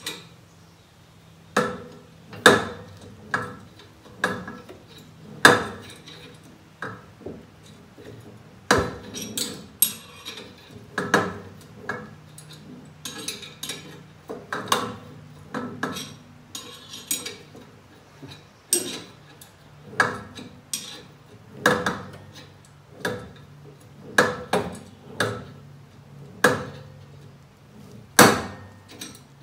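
A wrench turning the screw of a gear puller to draw a stuck pulley off a mower-deck spindle, held on by a keyway and no set screw. Sharp metal clicks and clanks come at uneven intervals, roughly one a second, some with a brief ring.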